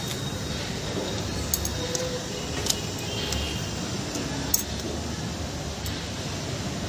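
Light metallic clinks and foil crinkles as steamed momos are lifted from an aluminium steamer and dropped into a foil takeaway tray, with a few sharp clicks, the loudest about four and a half seconds in, over steady background noise.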